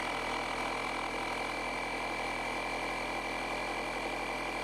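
A jump box's built-in air compressor running steadily, a motor buzz with a constant high whine on top; it sounds hideous but works.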